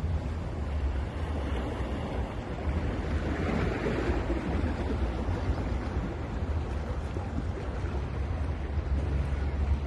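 Sea waves breaking and washing up a beach, one wave swelling up about three to four seconds in, over a steady low rumble of wind on the microphone.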